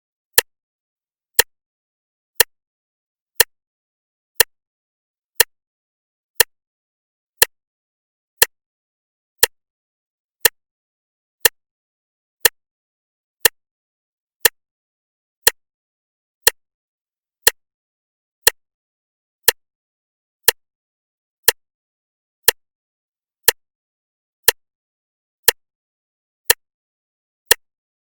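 Clock ticking steadily, one sharp tick a second with silence between the ticks.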